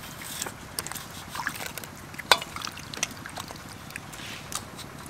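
A knife scraping and trimming wet cactus pads over a bowl of water, with water dripping and splashing and scattered small clicks, the sharpest a little past two seconds in.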